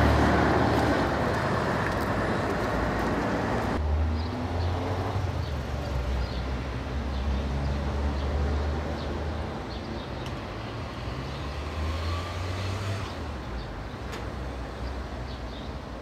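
Indian city street traffic: engines of cars, motorbikes and auto-rickshaws running and passing, with a steady low rumble. A loud rushing stretch in the first few seconds cuts off suddenly about four seconds in, and the traffic is a little quieter in the second half.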